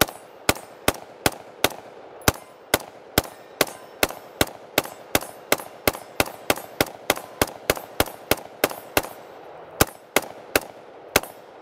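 Daewoo Max II (K2-pattern) semi-automatic rifle firing .223 ammunition in a rapid string of about thirty shots. The shots quicken from about two to about four a second, with a short pause near the end.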